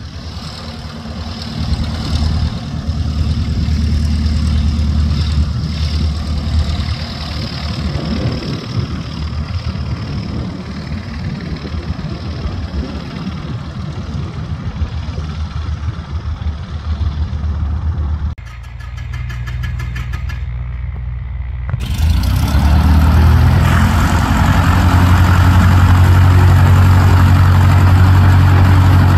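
Single-engine light aircraft's piston engine running at low power as the plane taxis, a steady low drone. It drops away about 18 seconds in, and some three seconds later a nearer plane's engine idles, louder.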